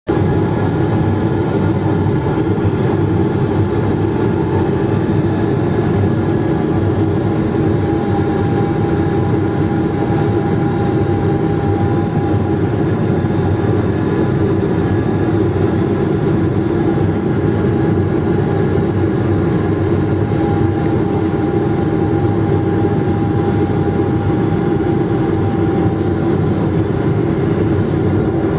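Boeing 777-200 cabin noise in flight on the approach: the steady rumble of the jet engines and rushing air heard from a window seat beside the engine, with a faint high whine that wavers slightly in pitch.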